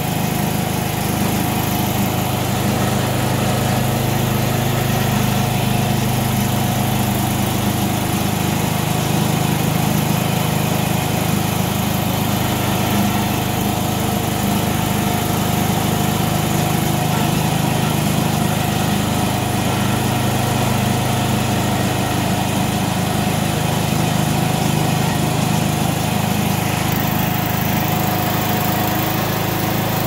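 Snapper joystick zero-turn riding mower running steadily with its cutting deck engaged, an even engine hum that holds the same speed throughout.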